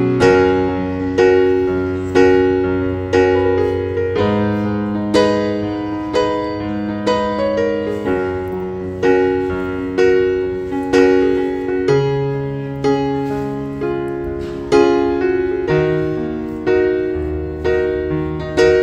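Background piano music: a slow, gentle melody over chords, notes struck about once a second and each fading away.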